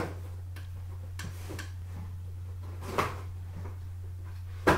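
A folding knife slitting the packing tape on a cardboard box: faint scraping and handling of the box, with a knock about three seconds in and a sharper knock near the end, over a steady low hum.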